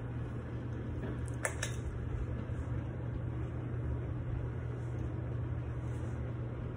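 Old ceiling fan running on its highest speed with a steady low hum and air noise, with a couple of faint clicks about a second and a half in.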